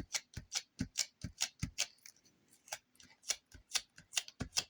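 Rapid, slightly uneven ticking: sharp clicks about four or five times a second.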